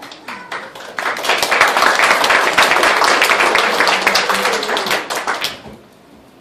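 A few separate hand claps, then a small crowd's applause that swells about a second in and dies away after about five seconds.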